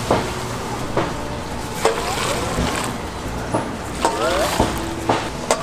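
Snack-stall kitchen and market bustle: a steady hiss with sharp knocks of utensils every second or so and snatches of voices in the background.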